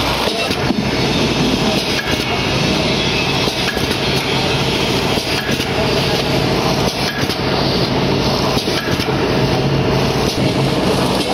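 Vertical form-fill-seal pouch packing machine running: a steady mechanical hum with a low drone and scattered clicks and clanks from its working parts.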